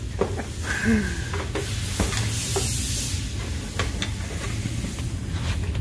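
Gasoline splashing and trickling out of a pickup's fuel tank through the opening where the fuel pump was removed: a steady splashing trickle with a few light clicks.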